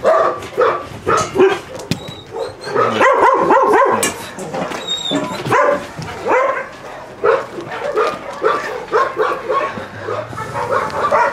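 Several dogs barking in quick, overlapping bursts.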